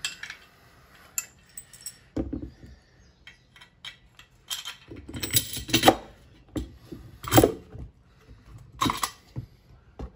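Metal brackets of a telescoping boat ladder, with bolts and washers, clinking and knocking as they are handled and set onto a wooden mounting board. The knocks are irregular, with the loudest ones coming in the second half.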